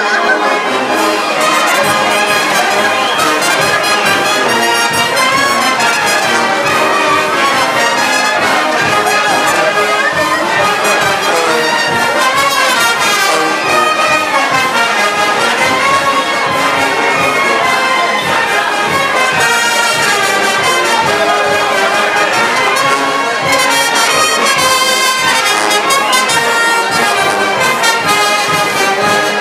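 Live brass band playing lively dance music, melody on the brass over a steady drum beat, without a break.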